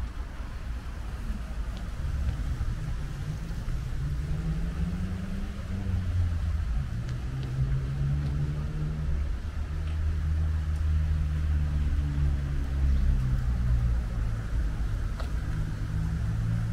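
Motor vehicle engine running close by, its pitch rising and falling slowly for several seconds, over a steady low rumble of street traffic.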